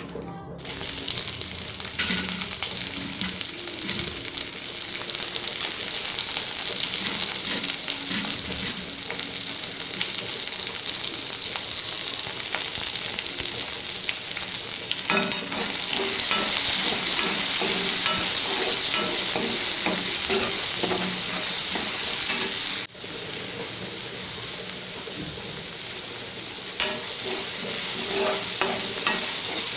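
Raw banana pieces frying in hot oil in a pan: a steady sizzle, with a spatula stirring through them. The sizzle breaks off for an instant about two-thirds of the way through, and a few sharp taps of the utensil on the pan come near the end.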